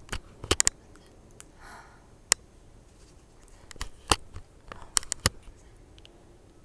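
About ten sharp, irregular clicks and taps, with a soft breathy sound about two seconds in.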